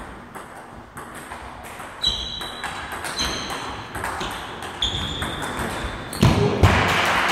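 A table tennis rally: the ball struck back and forth between rackets and table, each hit a short high ping, several over a few seconds. Near the end comes a louder, noisier sound that covers the pings.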